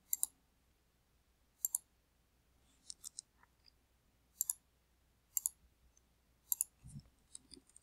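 Computer mouse clicks, sharp and short, about six spread over several seconds, several of them in quick double pairs.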